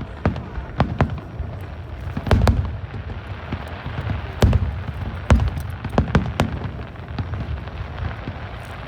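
Fireworks display: aerial shells bursting in quick, irregular succession, sharp bangs over a continuous low rumble and crackle, the loudest bursts about two and a half, four and a half and five seconds in.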